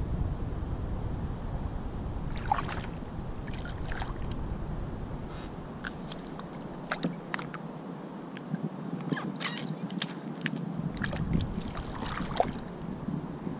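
Kayak paddle strokes through lily pads: scattered splashes, drips and light knocks of the paddle in the water, with wind rumbling on the microphone at the start and end.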